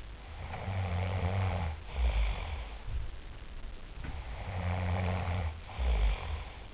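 A person snoring: two long, rattling snores about four seconds apart, each ending in a short, deeper burst.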